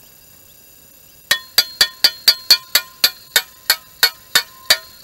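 A rapid run of sharp, ringing clinks, like something tapping on glass or metal close by, about four a second, starting a little over a second in and slowing slightly.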